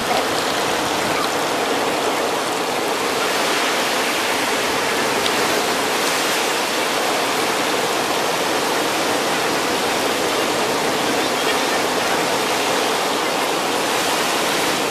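A steady rushing hiss with no rise, fall or breaks in it.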